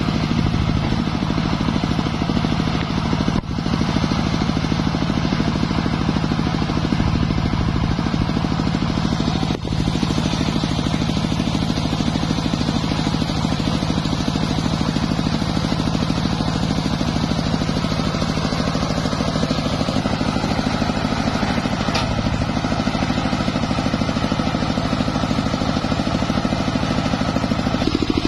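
Engine of a home-built circular sawmill running steadily at constant speed, a low, even hum with a fast pulse.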